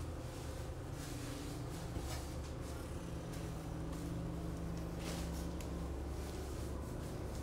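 A steady low hum, with a few faint clicks and rustles of hands working at a wheel hub.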